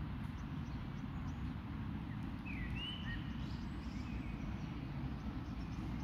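Steady low rumble of outdoor background noise, with a single short bird chirp about two and a half seconds in.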